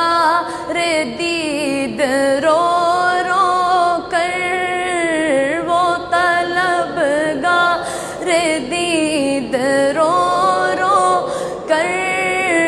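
A boy's high solo voice singing an unaccompanied Urdu salaam, drawing the tune out in long gliding, ornamented notes between the sung lines.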